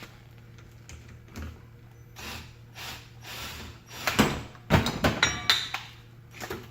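Metal tools and fan parts being handled and tightened: scraping and knocking, then a run of sharp clanks with a brief metallic ring about five seconds in.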